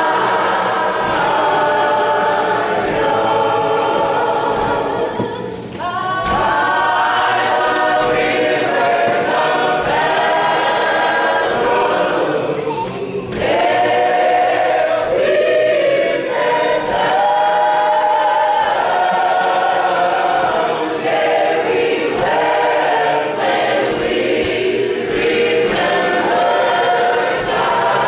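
A church choir singing together, holding long notes, with short breaks between phrases about five and thirteen seconds in.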